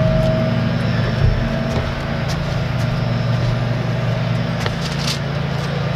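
Steady low mechanical hum of a Masterbuilt Gravity Series 560 charcoal smoker's combustion fan running. There is a single soft thump about a second in.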